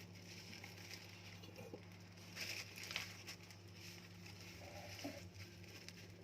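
Faint rustling of thin plastic garbage bags being rolled up by hand, a few soft crinkles over a steady low hum.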